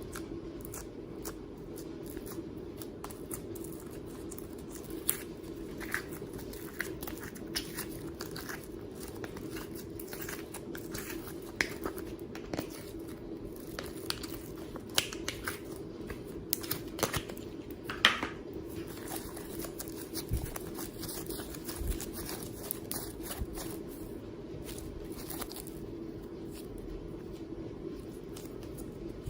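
Slime being squeezed and handled: irregular small clicks, crackles and pops, the loudest about two-thirds of the way through, over a steady low hum.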